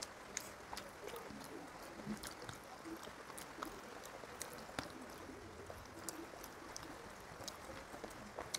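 Close-miked eating sounds: scattered sharp wet clicks and smacks from chewing and from fingers mixing rice and curry on a steel plate, over a steady hiss.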